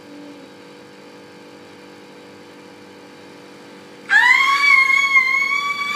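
Low steady room hum, then about four seconds in a loud, high-pitched excited squeal of delight from a person as the straw boat floats, rising slightly and held for about three seconds.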